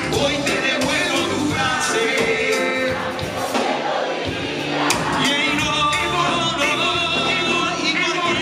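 Live band music with singing over it, one or more voices carrying a melody over a steady drum beat.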